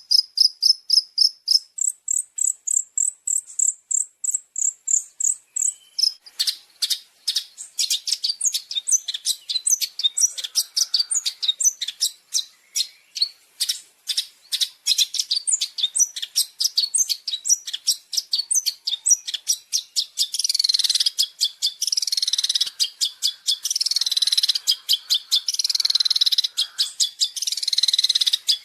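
Long-tailed shrike singing a fast, high-pitched song: sharp notes repeated about twice a second, breaking into rapid chattering about six seconds in, then loud scratchy warbling phrases of mimicked calls in the last third.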